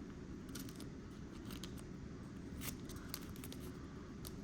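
Faint, scattered light clicks and rustles of a trading card and a soft plastic card sleeve being handled, over a low steady room hum.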